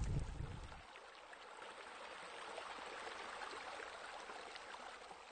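Soft, steady rush of running water, like a stream or small waterfall, swelling slowly and fading out near the end. In the first second a louder low rumble dies away.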